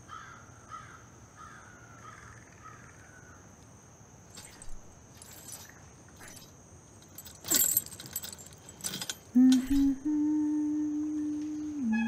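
A few short metallic clatters and rattles, the loudest about two-thirds of the way in, then a low sustained drone note from a horror film score that starts near the end and steps down in pitch.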